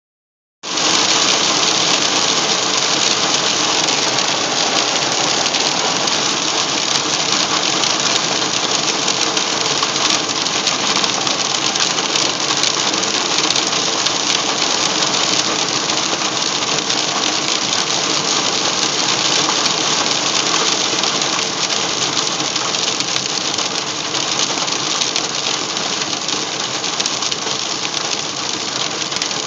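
Hail and heavy rain pelting the van's roof and windshield, heard from inside the van as a dense, rapid clatter of impacts over a steady hiss, easing slightly near the end.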